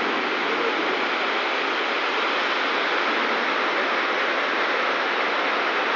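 Heavy rain pouring steadily onto a flooded street, a constant hiss.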